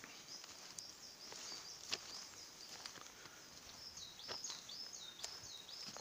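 Coal tit calling: thin, high notes, then a series of quickly repeated two-note phrases near the end. A few sharp clicks come in between, the loudest about two seconds in.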